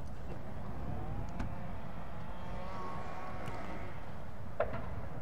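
Wind rumbling on the microphone, with a faint engine drone from a passing vehicle that swells and fades in the middle. A single soft knock comes near the end.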